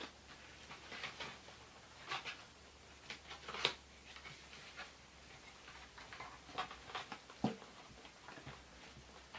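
Scattered small rustles and clicks of a boxed doll being handled and pulled free of its cardboard box and packaging.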